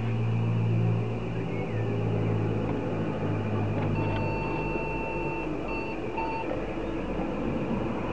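An IBM 5150 PC at power-on: a steady low hum from the machine running, then, about four seconds in, its internal speaker sounds one long beep followed by two short ones. This is a power-on self-test error beep code.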